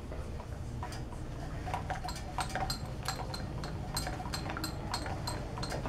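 A rag being worked back and forth inside a bicycle's steel bottom bracket shell to wipe out old grease, giving a run of light clicks and ticks about three a second from about a second in, over a low steady hum.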